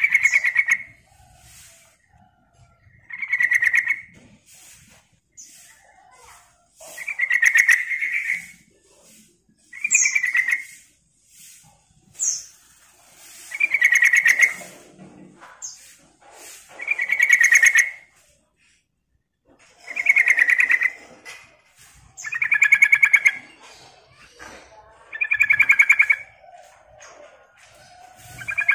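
Yellow-vented bulbul (trucukan) calling: a short, rapid, bubbly chattering phrase, repeated about every three seconds.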